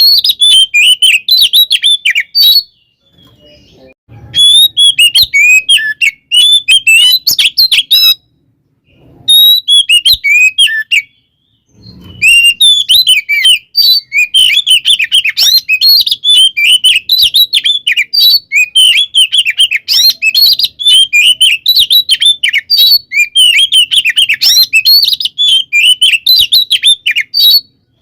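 Oriental magpie-robin (kacer) singing a fast, varied string of high chirps and whistles in its agitated, fighting-style song. It breaks off briefly three times in the first half, then sings on without pause.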